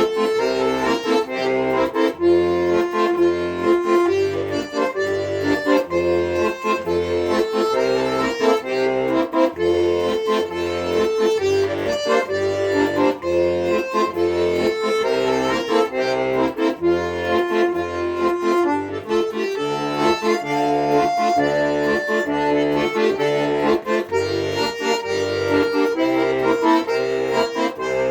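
Accordion playing an instrumental passage: a melody held over a steady, even pulse of bass notes.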